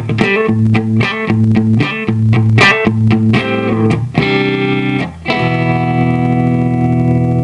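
Electric guitar played through a compressor pedal: quick picked notes and chord stabs, then a chord struck about five seconds in that rings on with long, even sustain.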